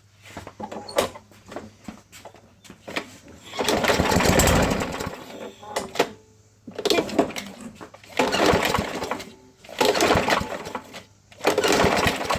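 Craftsman push mower's 550E-series 140cc engine being pull-started again and again, about five cranking bursts of one to two seconds each. It fires briefly and almost keeps running but dies. The spark is good, and the mechanic puts the fault down to the carburetor after untreated gas was left in over winter.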